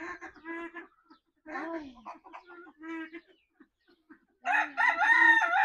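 Fowl clucking in a few short calls, then, about four and a half seconds in, a rooster starts a long loud crow.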